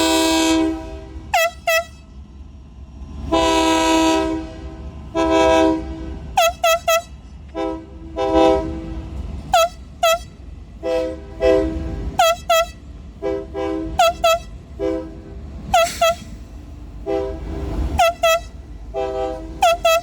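Union Pacific freight locomotive's air horn played as a horn show: a rhythmic run of long and short blasts broken by quick chirping taps, over the steady low rumble of the passing train.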